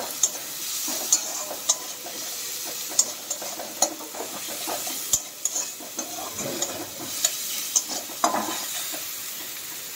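Chopped onion and tomato frying in oil in a metal kadhai, sizzling steadily, while a metal spatula stirs them and scrapes and clicks against the pan many times.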